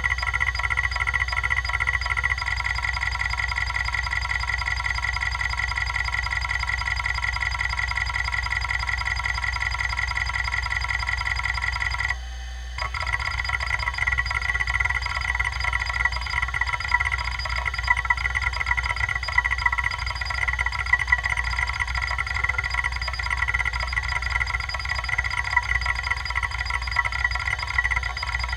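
Kalok KL-320 MFM hard drive running under a surface scan: a steady high whine with a fast, even chatter from the heads stepping across the tracks, and sharper clicks in the second half as it turns up bad sectors. The drive is badly damaged and running on three of its heads after one broke off. The sound drops out briefly about twelve seconds in.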